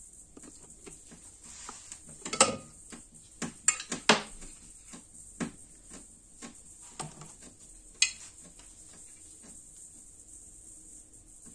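Scattered metal clinks and knocks as a screwdriver pries the valve cover off a Kawasaki ZZR400 engine head and the cover is lifted free. The sharpest knocks come about two and four seconds in, with another near eight seconds.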